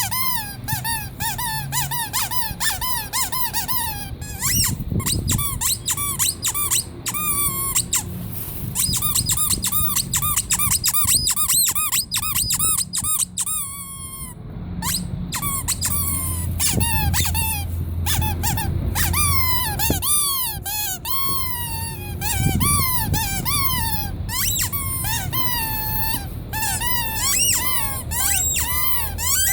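Rubber squeaky toys squeezed over and over, a long run of high squeaks that bend up and down in pitch, some in quick runs and some drawn out and wavering, with a low rumble underneath.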